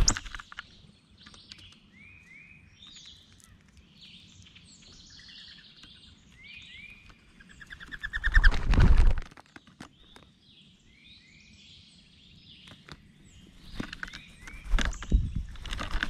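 Wild songbirds chirping and calling throughout. Wings flutter and scuff loudly at the tray feeder about eight seconds in and again near the end, as common grackles land and flap close by.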